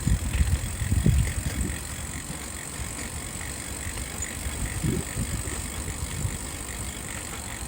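Electric bike riding uphill under motor power: wind buffeting the microphone and tyre rumble. The rumble is loud for the first second or so, then settles into a quieter, steady running noise.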